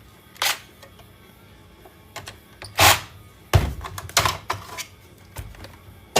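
A handful of separate knocks and clatters as scrap computer parts and tools are handled on a workbench, with a loud clunk a little before the middle and a quick run of clacks just after it.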